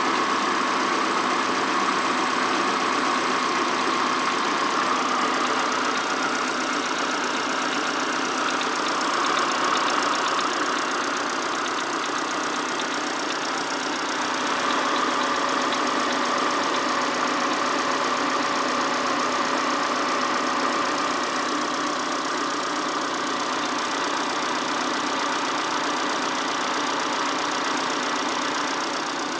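Peugeot-Citroën TU5 four-cylinder petrol engine idling steadily with a knock running through it, a knock whose cause the owner is asking about.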